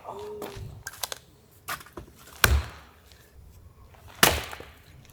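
Two loud, sharp thuds about two seconds apart, with a few lighter taps and clicks before and between them, like things being knocked or set down on a hard surface.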